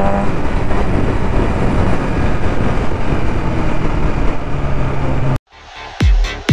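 BMW S1000RR inline-four with an Akrapovic full-system exhaust, heard from the rider's seat at speed. Its pitch climbs for a moment at the start, then a dense steady rush of wind and engine noise carries on as the bike slows. The sound cuts off abruptly after about five seconds, and electronic dance music with a heavy kick beat starts.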